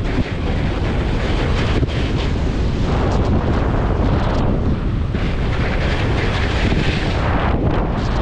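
Heavy wind buffeting on the microphone of a camera moving fast downhill, with the steady hiss of edges sliding over packed snow.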